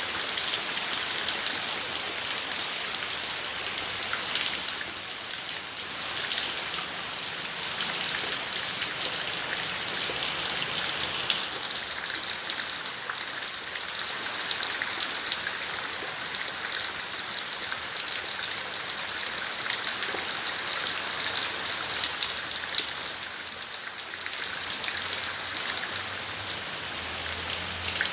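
Steady rain falling, a dense even hiss dotted with many separate drop hits.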